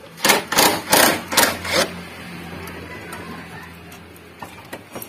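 Cordless impact wrench hammering in about five short, loud bursts within the first two seconds, as bolts are run in during engine installation; a steady low hum continues underneath afterwards.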